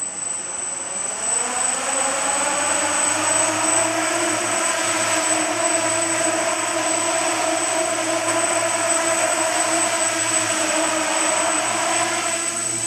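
Small electric quadcopter's motors and propellers spinning up and running, a steady buzzing whine with a constant high-pitched tone above it. The pitch climbs over the first couple of seconds as it lifts off, then holds while it hovers.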